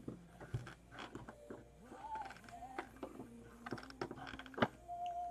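Plastic LEGO bricks clicking and clattering as pieces are handled and pressed together, a string of sharp irregular clicks with the loudest snap about four and a half seconds in.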